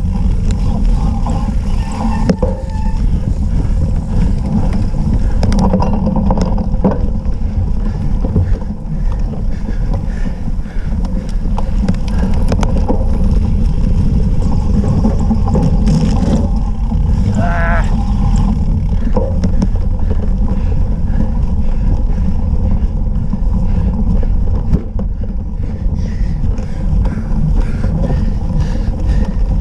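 Steady low rumble and rattling of a cyclocross bike riding over rough, muddy grass, with many small knocks as the wheels hit bumps. Wind buffets the microphone of the bike-mounted camera.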